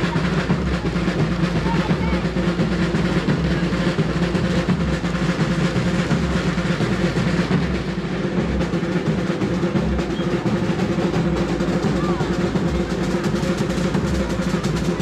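Parade drums playing a fast, continuous roll-like beat without a break, with crowd voices underneath.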